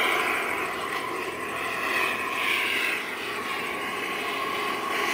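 Turbine-powered radio-controlled scale Hughes 500 model helicopter in flight: a steady turbine whine mixed with rotor noise, swelling and easing in loudness a few times as it moves across the sky.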